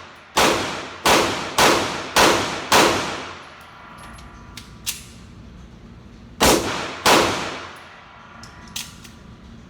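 Springfield EMP4 1911 9mm pistol firing with a ringing echo after each shot: five shots in quick succession, a pause of about three and a half seconds, then two more. The pistol is still jamming with a different magazine fitted.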